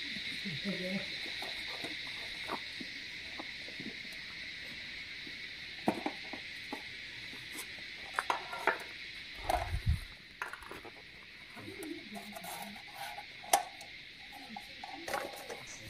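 A nested camping cook set being unpacked from its mesh bag: rustling, then pots and a lid clinking and knocking together in scattered sharp clicks, with a dull thump about ten seconds in. A steady high-pitched hum sits underneath and fades after the first few seconds.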